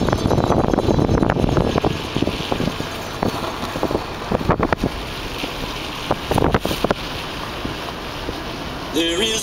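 Car driving down a road, heard from inside the cabin: steady road and wind noise with a few bumps partway through. Music starts up near the end.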